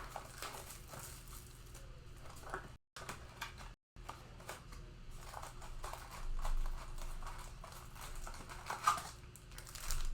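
Plastic wrapping crinkling and tearing as a Panini Mosaic football blaster box and its card packs are opened by hand: irregular rustling and crackling. The audio cuts out to silence twice, briefly, about three and four seconds in.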